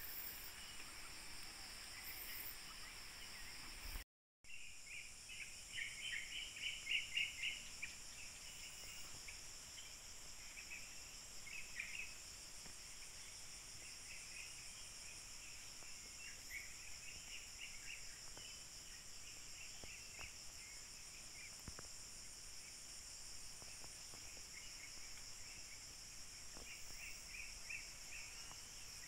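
Steady high-pitched insect drone with runs of bird chirping, loudest about six to seven seconds in. The sound cuts out completely for a moment about four seconds in.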